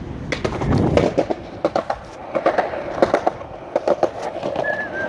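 Skateboard rolling over pavement, its wheels clacking over the joints in quick, uneven clicks and knocks over a low rumble. A wavering high whistle-like tone starts near the end.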